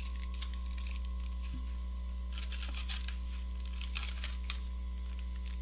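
Plastic and cardboard packaging of a trading-card tri-pack crinkling and tearing in short bursts, about two and a half and four seconds in, over a steady electrical mains hum.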